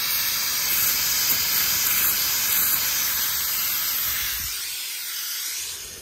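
Pressurised nitrogen hissing out of a heat pump's refrigerant circuit as the test charge is vented, steady at first and tapering off near the end as the pressure falls.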